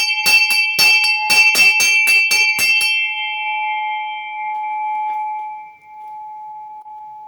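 A bell rung rapidly by hand, its clapper striking about three times a second for some three seconds. It is then left to ring on one clear tone, pitched around A5 and a little flat, that slowly fades.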